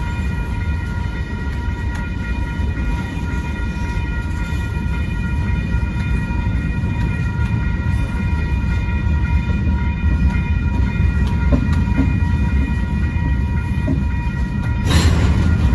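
Freight train's cars rolling past with a steady heavy low rumble. Several steady high-pitched tones sound over it throughout, and there is a brief loud burst of noise near the end.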